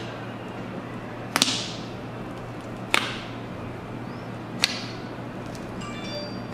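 Slime being poked by a finger in palette compartments: sharp snapping clicks, three of them about a second and a half apart, each with a short fading tail, over a low steady hum.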